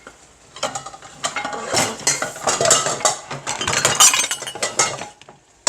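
Pots, pans and dishes clanking and clinking against each other in an irregular run as someone rummages through them for a pan lid. The clatter is loudest about four seconds in.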